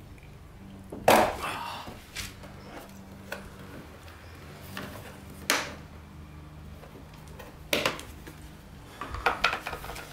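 Plastic trim clips on a Sprinter van snapping out of the body panel as the trim is pulled off by hand: a few sharp snaps, the loudest about a second in and others about five and a half and nearly eight seconds in, with lighter clicks between.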